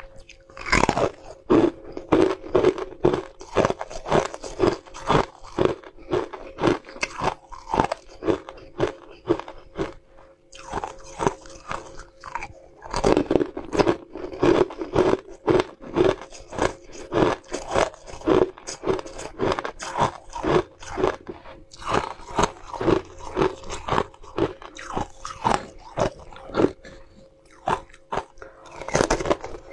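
Close-miked crunching of frozen ice sticks being bitten and chewed: a dense run of sharp cracks, several a second, with a short lull about ten seconds in before the crunching picks up again.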